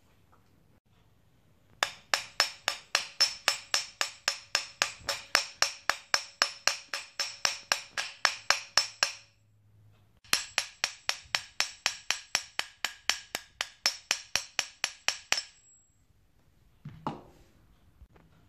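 A hammer beating copper wire flat into a soldering gun tip: quick, ringing blows at about four a second, in two runs of several seconds with a short pause between. A single knock comes near the end.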